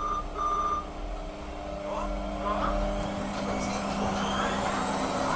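A phone call coming through on air: two short electronic beeps, then a steady line hum and rushing background noise.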